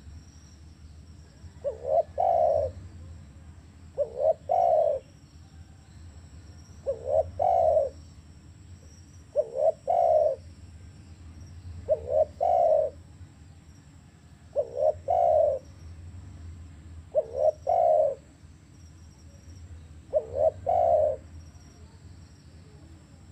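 Spotted dove cooing: a phrase of two quick notes run into a longer coo, repeated about every two and a half seconds, eight times.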